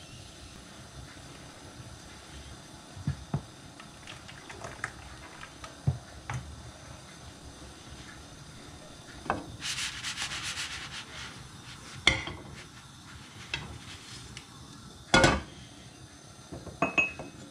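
Frying pan handled on a gas stove: a scraping rub about ten seconds in, then knocks, the loudest near the end as the pan is set back down on the burner grate. A faint steady hiss lies underneath.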